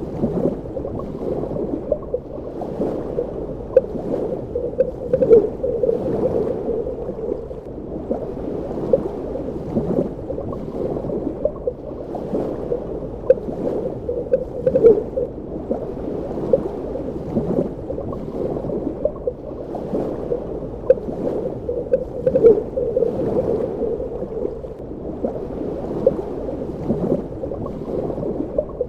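Underwater ambience: a steady, muffled low rush of water with frequent irregular bubbling pops and small clicks.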